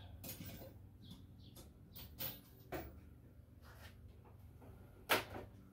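Steel roller tool chest being searched for a 9/16 socket: a few small metal clicks and clinks, then one louder clack about five seconds in as a drawer is pulled open.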